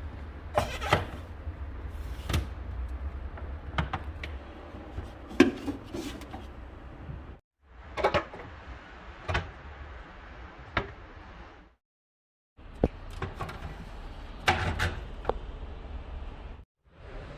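Household objects being handled: irregular knocks and clicks, such as containers set down and doors or drawers worked, over a low steady hum. The sound cuts off abruptly to silence three times, about a third of the way in, about two-thirds in and near the end.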